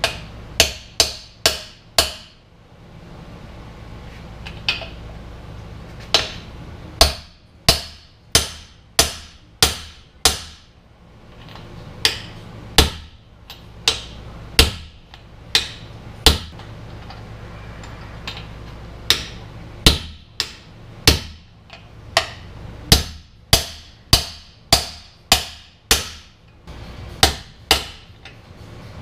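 Hammer blows on an aluminum driver puck, seating new steel pinion bearing races into a Chevy 8.6 rear axle housing. Sharp strikes come in runs of several, about two a second, with short pauses between runs.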